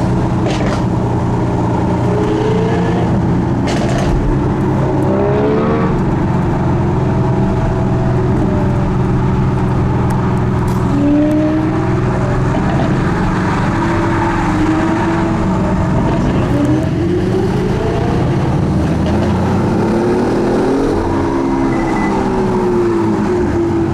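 Lamborghini Aventador S V12 with a catless Capristo exhaust, heard from a following car: steady engine and road noise, with the revs rising and falling several times and a few sharp exhaust pops in the first few seconds.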